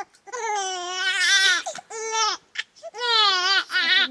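A young child crying in a string of long, high-pitched wails that rise and fall in pitch, with short breaks between them.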